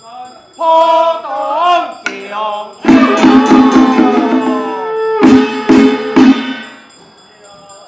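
Loud ritual music at a temple rite. A wavering melodic line starts under a second in, then a fuller passage begins about three seconds in, with several sharp percussion strikes, and dies away near the end.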